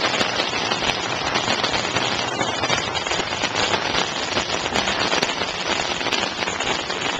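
Heavy rain falling on floodwater and wet pavement: a steady hiss made up of a dense patter of small drop impacts.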